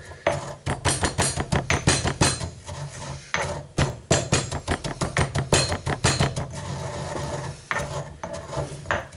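Pestle pounding and grinding coriander seeds, black peppercorns, sea salt and brown sugar in a black mortar. The strikes come quickly, about four a second, with a short break about three seconds in. Near the end they thin out to a few softer grinding strokes.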